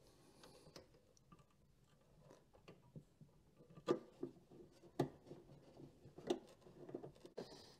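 Light, irregular metal clicks and taps of an Allen key turning a bolt into a jetboard's engine bracket. They are sparse at first and come more often from about halfway through.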